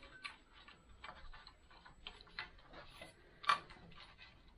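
Light, irregular clicking and ticking of small metal parts being worked by hand, with one sharper click about three and a half seconds in.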